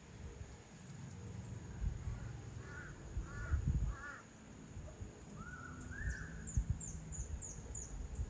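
Outdoor bird calls: three short caw-like calls, then two longer drawn-out calls, followed near the end by five quick, high descending chirps from a smaller bird. A low rumble runs underneath.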